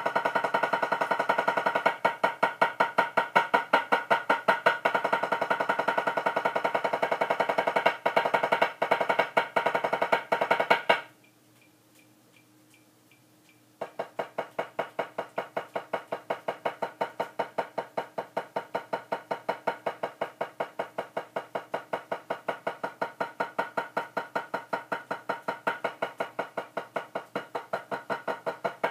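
Drumsticks playing a fast, even stream of strokes on a drum practice pad, a rudiment exercise. The strokes stop for about three seconds about eleven seconds in, then start again more softly.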